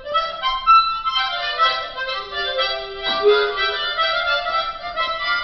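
Instrumental music with no singing: a free-reed instrument playing the tune in sustained notes and chords.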